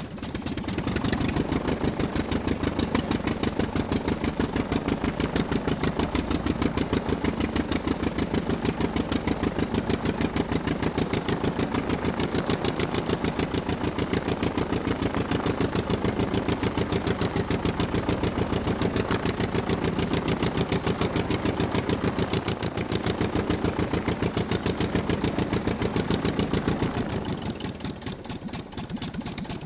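Aircraft piston engine running steadily, its separate firing beats plain. It picks up about a second in and drops back near the end, the beats turning uneven.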